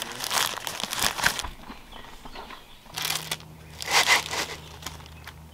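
Thin plastic packaging crinkling in the hands: a bread bag being rummaged for slices, then the plastic wrap being peeled off a cheese slice, in two bursts of crackly rustling.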